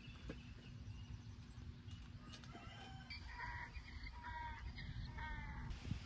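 A chicken calling: about five short clucking calls in a row, starting about two seconds in, over a steady low rumble.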